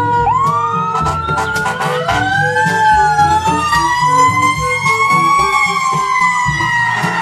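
Fire engine siren wailing, several overlapping tones sweeping slowly up and down in pitch. Background music with a steady low beat plays under it.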